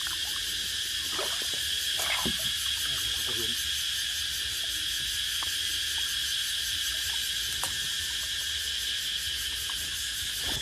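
Cicadas calling in a steady, high, continuous chorus with a fast pulsing shimmer, the morning chorus of the hot season. A few faint knocks and weak distant voices sound underneath.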